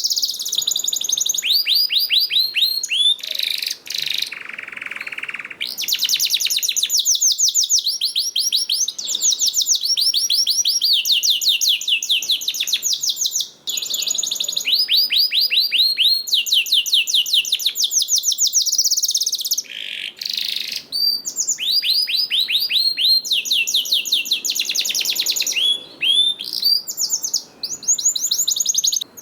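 Domestic canary singing: fast trills of repeated down-sweeping notes, in phrases of a second or two that jump in pitch from one to the next, with a short harsh buzzy phrase about four seconds in.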